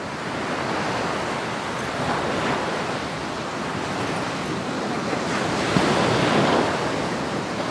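Ocean surf washing onto a sandy beach in a steady hiss that swells twice, a little past two seconds in and again about six seconds in.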